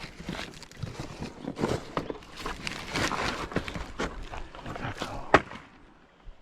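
Irregular rustling, scuffing and knocks as camping gear is handled and set down, with one sharp knock about five seconds in.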